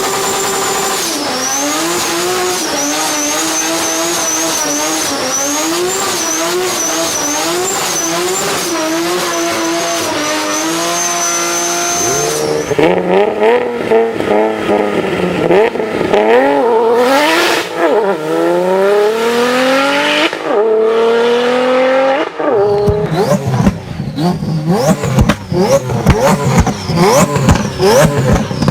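Turbocharged car engines revving, in three clips one after another. First, an engine held at fairly steady revs with a high, wavering whistle over it; about twelve seconds in, a louder engine revving up and down; near the end, quick repeated blips of the throttle.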